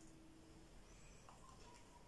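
Near silence: room tone, with one soft tap a little past halfway.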